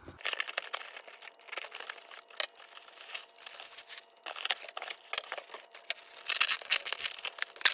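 Packaging crinkling and rustling in irregular crackles as a box is unpacked by hand, with a louder flurry of crinkling near the end.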